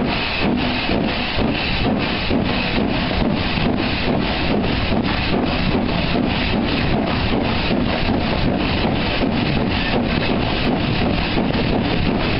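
Steam locomotive chuffing steadily under way, about three to four exhaust beats a second.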